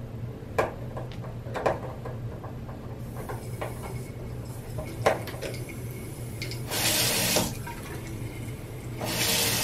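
Water running from a Moen single-handle faucet spout into a bathroom sink, starting about three seconds in and twice rushing louder for under a second, with a few sharp metal clicks of the screwdriver on the cartridge early on. The water runs though the faucet should be shut off: "something isn't tight", and the new cartridge, the owner thinks, is not seated properly.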